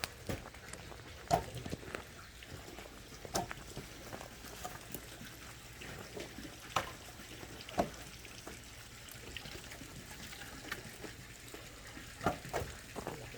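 Steady trickle of running water, with scattered sharp clicks and knocks over it.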